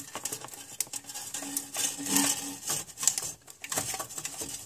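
Irregular small clicks, taps and rustles of hands working the plastic and metal parts and wiring of an old fluorescent under-cabinet light fixture as it is taken apart.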